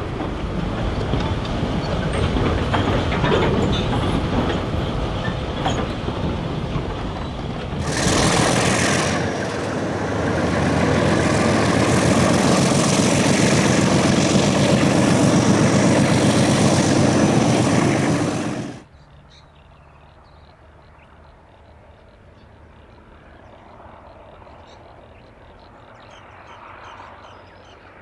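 Diesel locomotive running, louder and fuller from about eight seconds in, then cut off suddenly a little past the middle, leaving only a faint low background.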